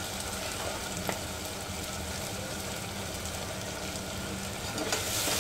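Sliced onions and green chillies sizzling steadily in hot oil in an aluminium pressure cooker, frying over high flame. There is one light click about a second in.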